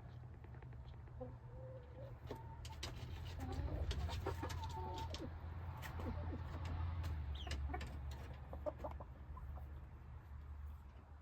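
Domestic hen clucking in short, low calls while settling on the roost for the night with her chick, with scattered clicks and rustles over a low rumble.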